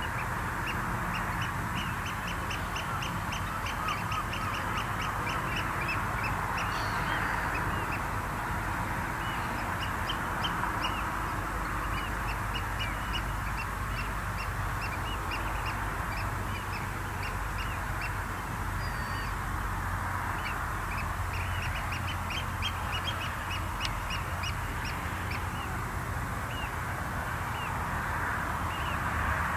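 Wading birds calling on tidal mudflats: many short, high calls given in quick runs, with pauses between runs. Under them lie a steady low hum and an even hiss.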